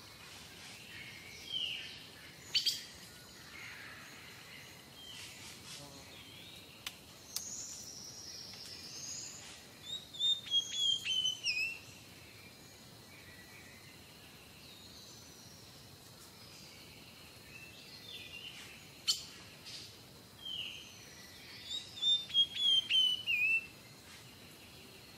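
Small birds calling and singing: scattered chirps and whistles, with the same quick descending run of notes sung twice, about twelve seconds apart. A sharp click sounds about two and a half seconds in, and another some sixteen seconds later.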